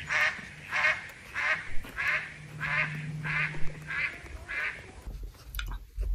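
Footsteps crunching through fresh snow, about two steps a second, stopping about five seconds in. A few light clicks follow near the end.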